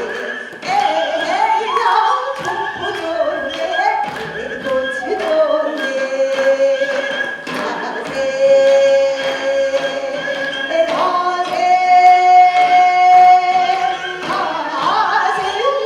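A woman singing a Korean sinminyo (new folk song) in the traditional sori style, her voice sliding and wavering between notes and holding two long notes in the middle, the second higher, over sharp percussion strikes.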